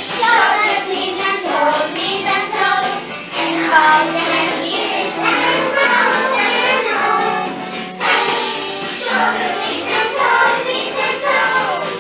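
A children's song with young voices singing over a backing track.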